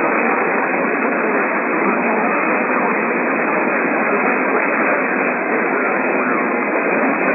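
Steady hiss of radio static from a receiver with no voice on the channel, thin and muffled with no highs or lows, at an even level throughout.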